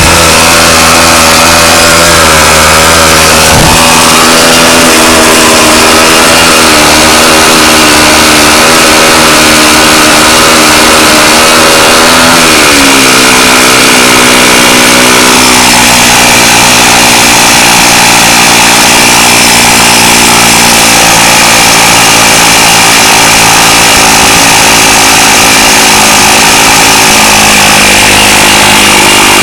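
Old Homelite hedge trimmer two-stroke engine converted to run on compressed air, running fast and loud with a steady buzz; its speed falls about twelve seconds in and it runs on slower.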